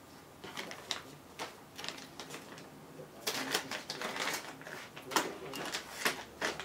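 Small hard plastic parts of a quadcopter being handled, giving irregular clicks and rattles that grow busier about halfway through.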